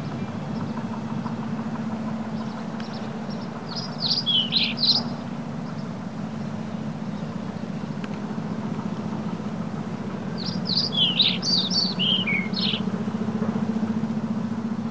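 A songbird singing two short phrases of quick, high, falling chirps, the first about four seconds in and a longer one about ten seconds in, over a steady low hum.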